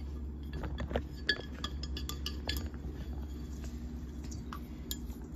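Scattered light clinks and taps of a blender jar against a stainless steel bowl as ground oats are poured and knocked out of it, over a low steady hum.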